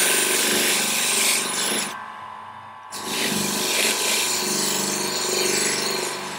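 Steel knife blade pressed against a spinning buffing wheel on a polishing motor, a rushing, scraping hiss over the motor's steady hum. The polishing comes in two passes, the first ending about two seconds in and the second starting a second later.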